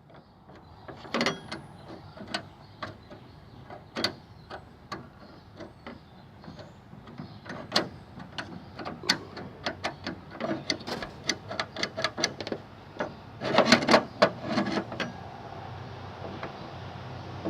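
Metal parts of an old skeleton-key lock set clicking and clinking as it is handled and worked apart, in irregular taps, with a denser flurry of clicks about three-quarters of the way through.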